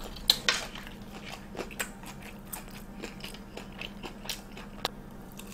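Close-miked chewing of a batter-fried Korean corn dog: a string of crisp crunches, with several louder ones in the first two seconds and one sharp crunch near the end.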